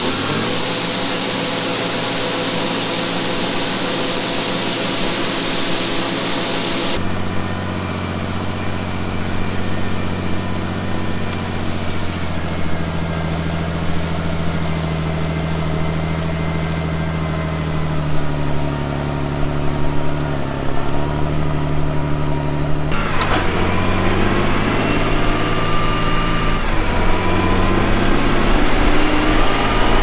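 Shelled corn hissing as it pours from a John Deere combine's unloading auger into a grain wagon, over the combine's engine. Then a John Deere tractor's diesel engine runs with a steady drone and rises in pitch twice near the end as the tractor speeds up.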